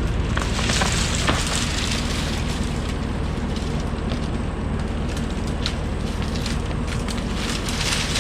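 Bobcat E42 mini excavator's diesel engine running steadily under load while brush and small trees crackle and snap as the machine pushes through and tears them out.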